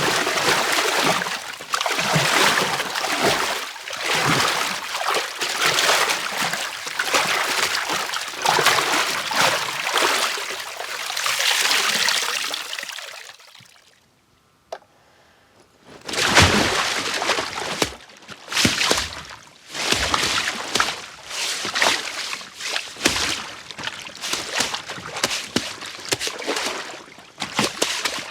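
Water sloshing and splashing in a foley pit, performed as a body in icy lake water. It runs continuously for about thirteen seconds, stops for about two seconds, then resumes as irregular short splashes and sloshes.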